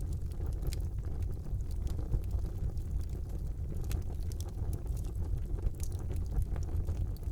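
Fire burning in a fireplace: a steady low rumble of flames with scattered sharp crackles and pops, about one a second.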